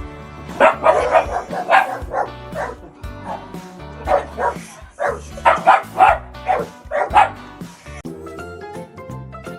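A dog barking: a quick run of short barks, a pause, then a second run, over background music.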